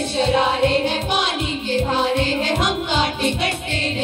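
A group of girls singing a song together, accompanied by an electronic keyboard over a steady beat.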